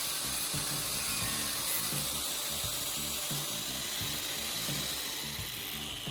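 Angle grinder cutting into PVC pipe: a steady, hissing grind that eases off slightly near the end.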